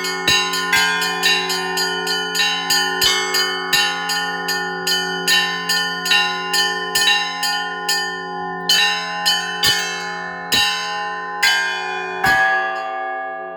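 Orthodox church bells rung by hand: a quick run of strikes on the small bells, about three a second, over the steady hum of the larger bells. About nine seconds in it slows to a few single strikes about a second apart, and after the last one near the end the bells ring on.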